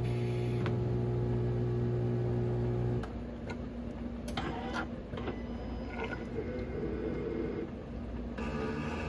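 Bravilor Bonamat coffee machine brewing and dispensing a coffee crema into a mug. A strong steady motor hum runs for the first three seconds, then gives way to a quieter, higher-pitched running sound with scattered clicks.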